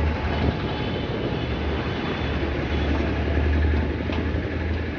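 Steady low rumble of outdoor street noise, with no clear single event standing out.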